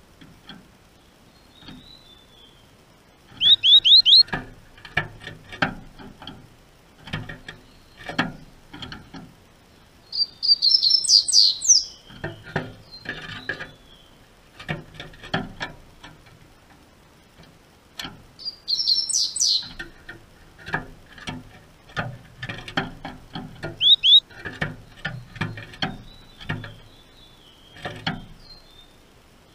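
Double-collared seedeater (coleiro) singing: four loud bursts of rapid, high chirping notes spread through, with softer chirps between. Many light clicks and taps of a bird hopping about on the cage's wooden perches fill the gaps.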